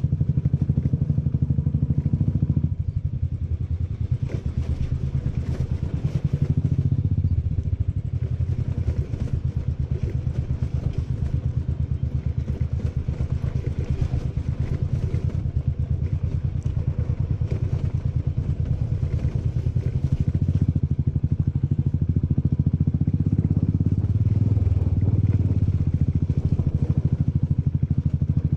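Royal Enfield Classic 500's air-cooled single-cylinder engine running under way, a rapid, even thud of firing pulses. It eases off briefly about three seconds in, then pulls on steadily.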